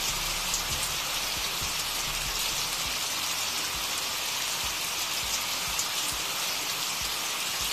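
Steady recorded rain, an even hiss of falling rain, used as the cover track of a subliminal audio.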